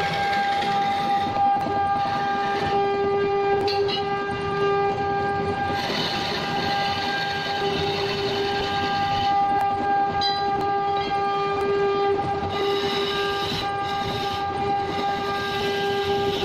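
Wood lathe running with a steady motor whine, while a hand-held turning tool cuts the spinning wooden workpiece in intermittent scraping passes.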